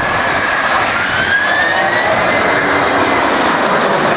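Boeing 757's twin jet engines on a low pass during a simulated go-around: a loud, steady jet roar growing slowly louder, with a whine that rises in pitch about a second in as power comes up.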